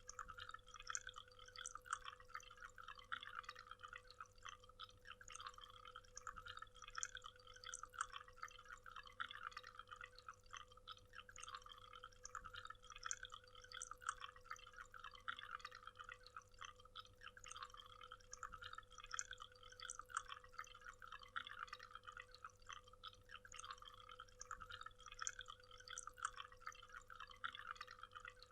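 Faint waterfall: water splashing and trickling steadily.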